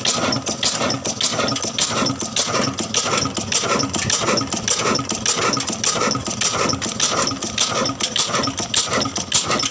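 Old 20 hp black desi diesel engine running steadily, its firing beating out an even, quick knock several times a second.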